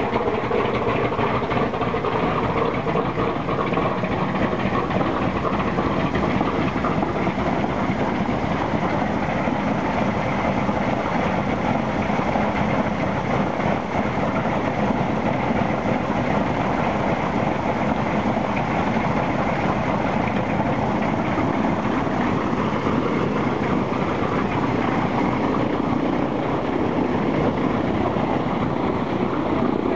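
Ilyushin Il-14's Shvetsov ASh-82T radial piston engine running steadily on the ground, its propeller turning, heard close up.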